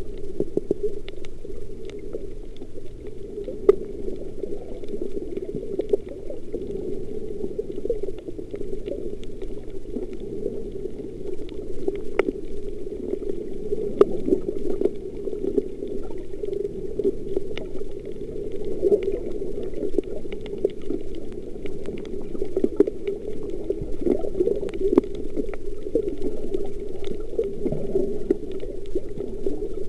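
Muffled underwater water noise picked up by a camera under the surface while snorkelling: a steady dull rush and bubbling, with scattered sharp clicks throughout.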